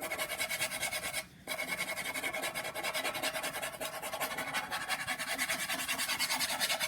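Pen scratching across paper in rapid back-and-forth shading strokes, with a short break about a second and a half in.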